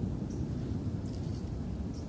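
Steady low rumble of wind buffeting the microphone, with a few faint high chirps.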